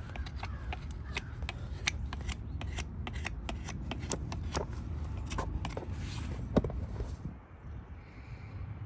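Hoof being trimmed with hand farrier tools: a quick run of short cutting and scraping strokes, about three or four a second, that stops about seven seconds in.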